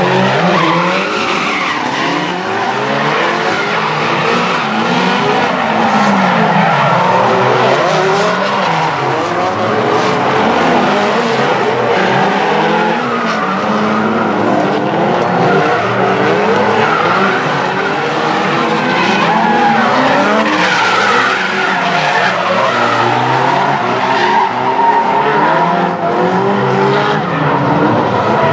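Two drift cars sliding in tandem, their engines revving hard up and down, the revs overlapping, over steady tyre squeal and skidding.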